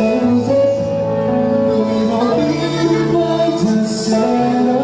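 A male singer sings a slow pop song live into a microphone over a backing track, his held notes stepping from one pitch to the next.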